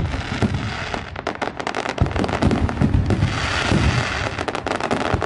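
Aerial fireworks crackling and banging in a dense, rapid string from crackle-effect shells. There is a short lull about a second in, and a sharp bang at about two seconds sets the crackling going again.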